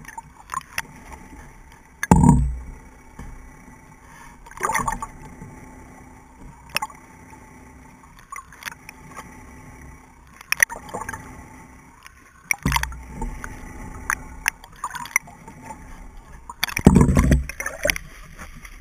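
Underwater sound: a steady low hum with scattered sharp clicks and knocks, and four loud low rushes of water, the last near the end as the camera breaks the surface.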